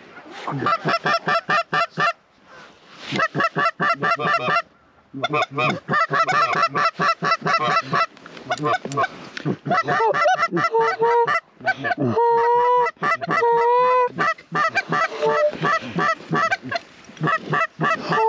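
Goose calls worked hard to bring in a flock of lesser Canada geese: fast runs of clucks in bursts with short pauses between, then several longer held honks in the second half, the last one rising at the end.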